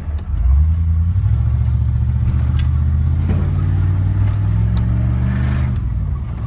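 1990 Ford F-150 engine and replaced exhaust under throttle. The engine pulls hard about half a second in, the revs climb and hold steady, then it eases off near the end.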